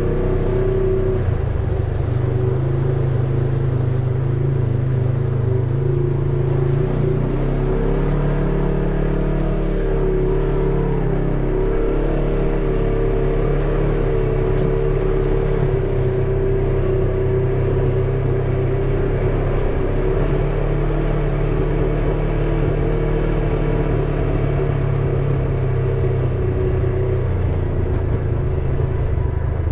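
Polaris RZR side-by-side engine running under way on a muddy dirt trail, a steady drone whose pitch shifts a little as the throttle changes.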